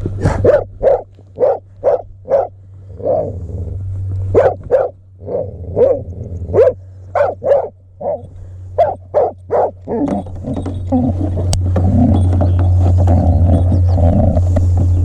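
Blood-tracking dog barking over and over, about two barks a second. About ten seconds in the barking gives way to a steady low rumble.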